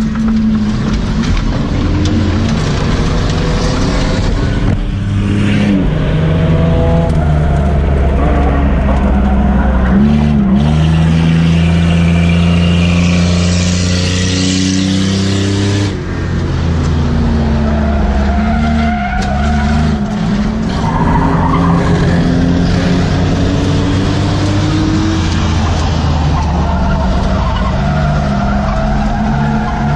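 Six-cylinder enduro race car engine heard from inside the cabin, running hard under racing load, its revs rising and falling through corners and straights. Tyres squeal and scrub at times, strongest about halfway through.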